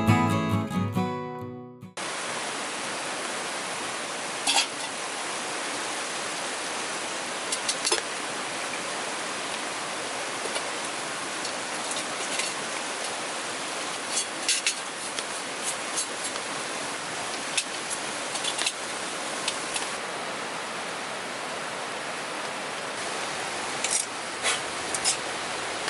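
Background music fades out in the first two seconds. Then comes a steady hiss of heavy rain, with scattered sharp ticks and taps.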